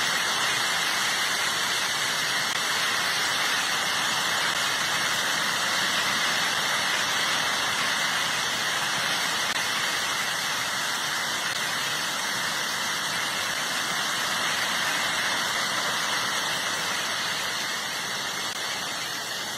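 A steady, even hissing rush of noise with no breaks and no distinct events, fading slightly near the end.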